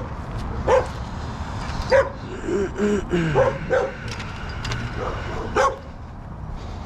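A dog barking, about five sharp single barks at irregular intervals, with a stretch of lower, softer sounds between them in the middle.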